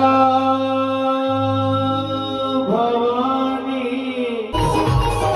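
Live Hindu devotional bhajan singing: one voice holds a long note, slides into a second long held note, and then, about four and a half seconds in, the band comes in with drums.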